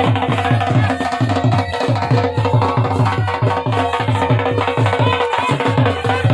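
Dhol beating a fast, steady rhythm, with a melody instrument (the baja) holding sustained notes over it: live folk music played to accompany communal grass-cutting.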